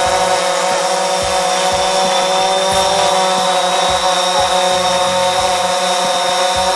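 DJI Phantom 4 Pro quadcopter hovering and rotating in place, its propellers giving a steady, loud multi-tone whine.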